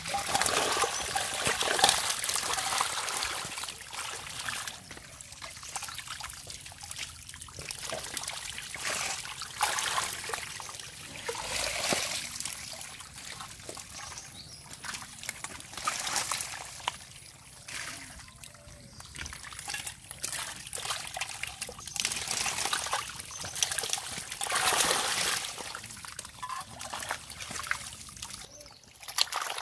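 Wet mud and water splashing and dribbling in irregular bursts as stinging catfish are scooped out of shallow pond mud by hand and with metal bowls.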